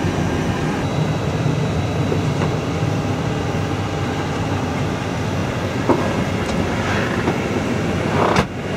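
Steady background hum and rush of air inside the cockpit of a parked Airbus A321. There is a faint click about six seconds in, and a short louder rush near the end that cuts off abruptly.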